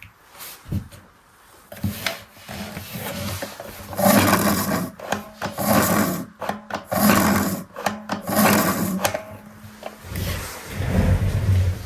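A plastic toy washing machine being worked by hand: rubbing and scraping in repeated waves, over a steady low hum, with a heavier, lower rumble near the end.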